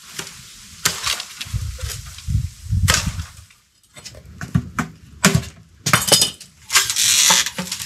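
Bamboo being chopped and split with a blade: a series of sharp cracks and knocks a second or two apart, with rustling between the strokes.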